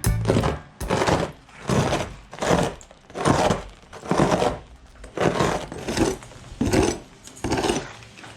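Rhythmic scraping strokes of a hand tool worked back and forth on a boat's hull, about one stroke a second.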